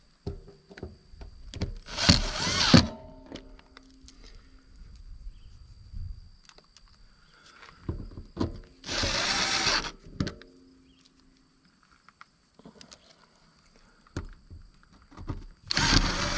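Milwaukee M18 cordless impact driver hammering screws into an RV water heater's face frame, in three short bursts of about a second each: near the start, midway, and at the end.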